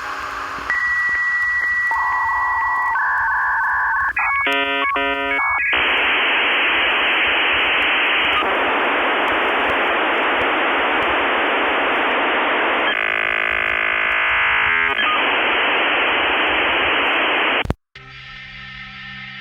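Dial-up modem connecting: dial tone and dialing beeps, a rapid run of handshake tones, then a long steady hiss of data noise that cuts off suddenly near the end, where music with electric guitar starts.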